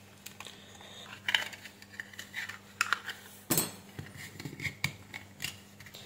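Plastic clicks and scrapes from the white plastic case of an air-conditioner remote being handled and prised apart at its push-fit clips, with a sharper click about three and a half seconds in.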